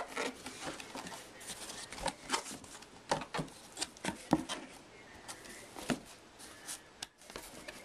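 Irregular clicks, taps and rustles of a cardboard box and packaging being handled and opened to get at a helmet.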